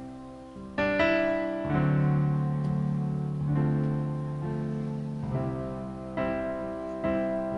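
Slow piano introduction to a pop ballad: sustained chords, with a new chord struck every second or two.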